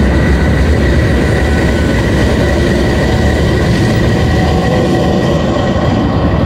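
Diesel engine of a GE U20C (Pakistan Railways GEU-20) diesel-electric locomotive running under load as it pulls slowly away: a steady, loud low rumble with a thin high whine over it.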